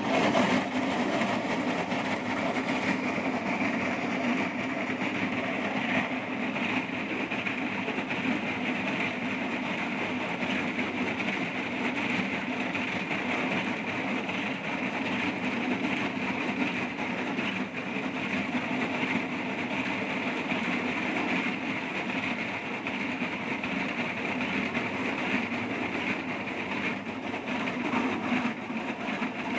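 Marais micro trenching machine sawing a narrow slot into the road surface for fiber optic microduct, its cutting wheel grinding steadily through the pavement under water spray.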